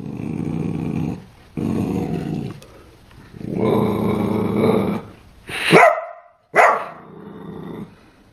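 Corgi puppy growling: three low, drawn-out growls of about a second each, then two sharp barks about a second apart, the first falling in pitch.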